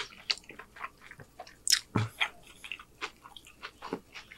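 Close-miked chewing of a chicken street taco on a corn tortilla: a run of short, irregular mouth clicks and smacks, with one louder about two seconds in.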